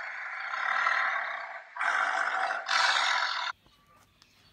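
Tiger making a harsh, noisy call in three stretches that stops abruptly about three and a half seconds in.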